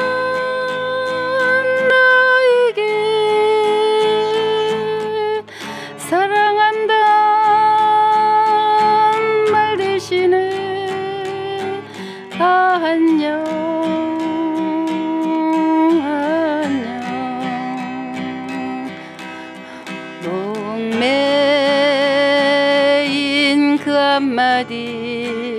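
A singer holding long, slow notes with vibrato over his own acoustic guitar accompaniment, in a Korean ballad played by an amateur guitar student.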